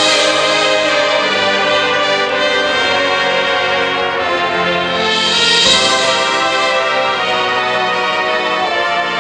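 Marching band playing, its brass section sounding held chords over the front-ensemble percussion, swelling to its loudest about five to six seconds in.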